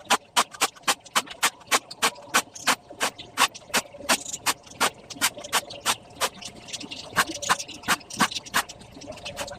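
Rapid, regular knocking: sharp strikes about three times a second, keeping an even beat.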